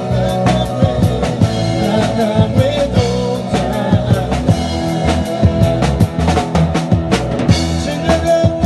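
Live band playing a gospel worship song, led by a drum kit with frequent, regular hits over sustained keyboard or guitar chords.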